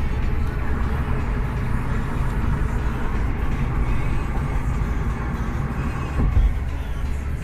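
Steady road noise inside a moving car's cabin at highway speed: a low rumble of tyres and engine, with a brief louder bump about six seconds in.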